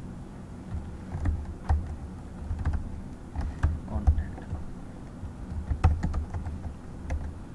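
Typing on a computer keyboard: irregular key clicks, with a few harder strokes about four and six seconds in.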